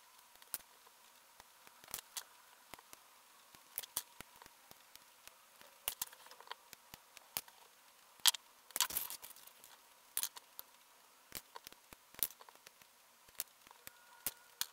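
Hobby nippers snipping small plastic model-kit parts and trimming gates: a run of sharp, irregular clicks and snaps. About nine seconds in there is a brief scraping rustle.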